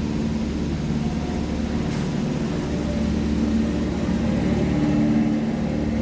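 Jungle Cruise tour boat's motor running with a steady low hum, with a single sharp click about two seconds in.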